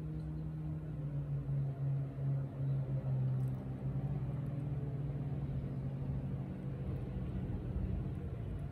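An engine hums steadily. Its pitch drops slightly about a second in, and its loudness wavers for the next couple of seconds.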